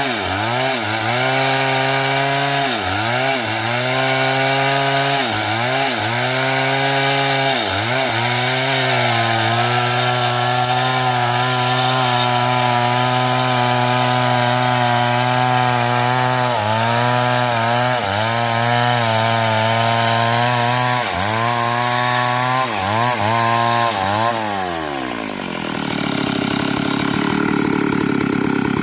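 Two-stroke chainsaw cutting through hard coconut-palm wood, its engine pitch dipping and recovering every second or two as the chain bites and bogs under load. Near the end the revs fall away and the saw drops to idle.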